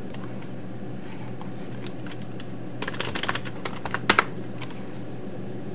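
Computer keyboard typing: a short run of keystrokes about three seconds in, then two sharper, louder key presses about a second later.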